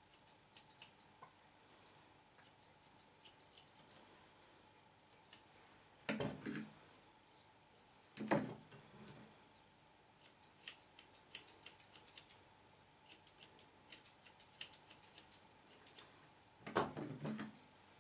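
Grooming scissors snipping through a poodle's coat in quick runs of crisp snips. Three louder brief noises come between the runs, about six and eight seconds in and near the end.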